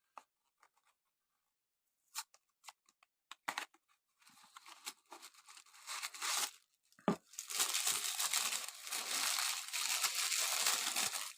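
Packaging of a Matchbox diecast car being torn open: a few light clicks and handling sounds, then tearing and crinkling of cardboard and plastic that becomes continuous and louder in the last few seconds.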